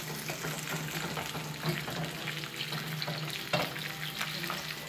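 Floured chicken drumsticks frying in hot oil: a steady sizzle full of small crackles and pops, over a low steady hum.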